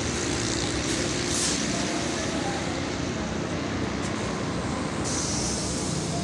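Steady hum of road traffic, a continuous wash of passing vehicles.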